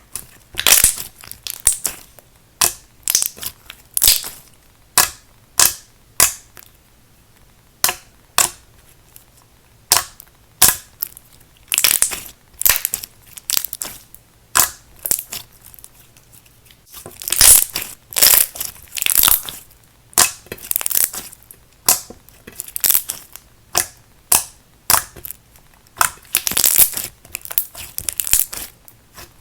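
Thick clear slime mixed with fishbowl beads and glass micro beads, being squeezed and poked by hand: irregular bursts of crunching, crackling pops.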